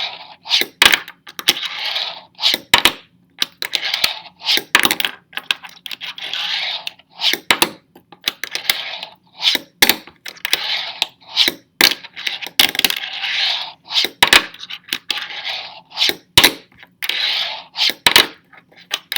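Fingerboard being popped and landed over and over on nollie flip attempts: sharp clacks of the small deck and trucks hitting the surface, with short rolling whirs of the wheels in between.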